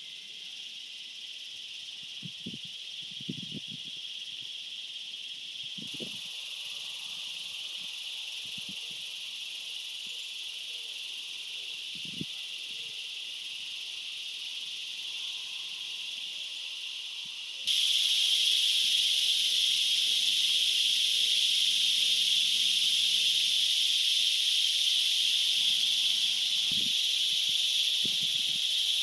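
Steady high-pitched insect buzzing, which jumps sharply louder about two-thirds of the way through. A few brief low thumps fall in the first half and near the end.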